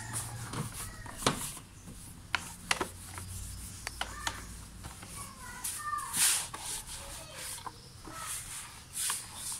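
A cloth wiping foam cleaner off an engine, in irregular swishing strokes with a few light clicks as it catches on the parts.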